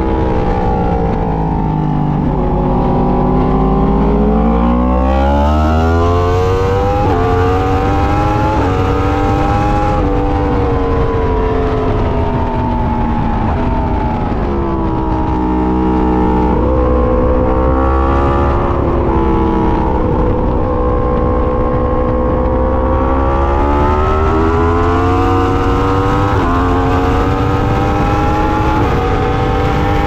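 Yamaha R1's inline-four engine heard onboard at speed on a race track, its revs dropping and climbing again several times, with quick steps in pitch at the gear changes.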